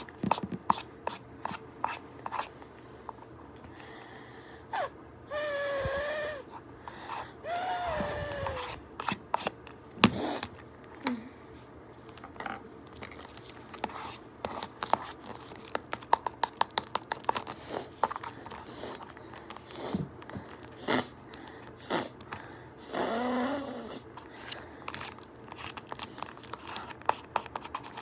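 Fingernails tapping and clicking on a plastic squeeze tube in quick, irregular taps. Three brief squeaky, pitched sounds break in, about five, eight and twenty-three seconds in.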